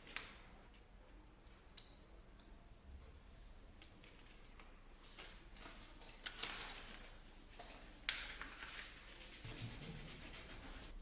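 Faint rubbing and rustling, like handling or movement against fabric, in two stretches about six and eight seconds in. There is a sharp click at the very start and another at the start of the second stretch.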